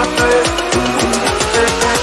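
Background music with a fast, steady beat and deep bass notes that slide down in pitch.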